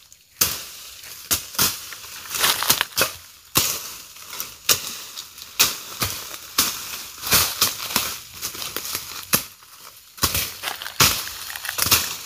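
Dry brush and leaves crunching and cracking in irregular bursts, a few a second, as undergrowth is being cleared.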